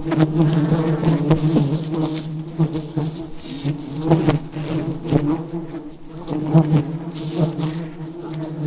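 A dense swarm of wild honeybees buzzing in a steady, continuous drone close to the hive, with a few short clicks and knocks scattered through it.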